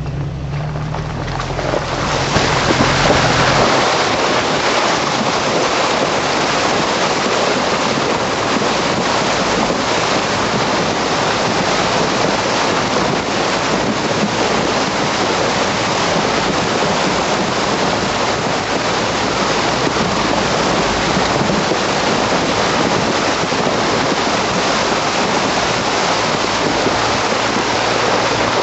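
River water rushing and splashing against a Jeep as it fords a shallow river, a loud steady wash that swells about two seconds in. The Jeep's engine hum is heard low beneath it at the start.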